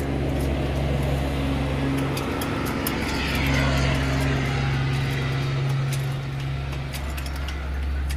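Steady low hum of a motor vehicle engine running, over street noise. The hum drops away for about a second a little over two seconds in, then returns.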